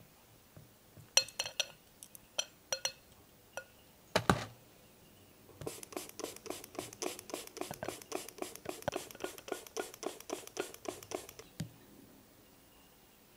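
Small clay granules spooned into a glass jar, clicking and clinking against the glass a few times, with one louder knock. Then a fast, even run of clicks, about five a second, lasts for about six seconds.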